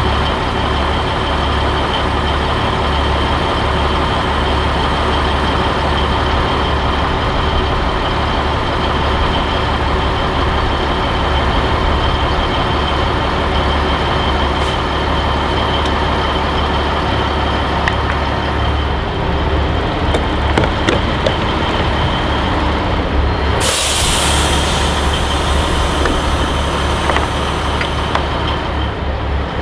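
Diesel truck engine idling steadily at a fuel island, with a constant high whine over the low rumble. A short, loud burst of hissing air from the truck's air system about 23 seconds in.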